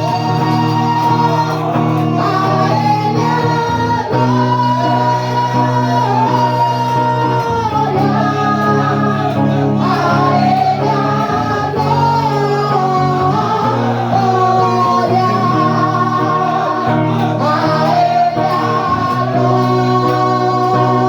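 Live gospel worship music: a voice singing a melody over instruments, with held bass notes that change every couple of seconds.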